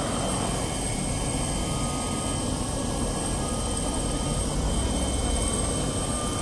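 Ambulance helicopter running on the ground with its engine and rotor turning: a steady rushing din with a thin, steady high whine. A motorcycle passes about midway, adding a slight swell.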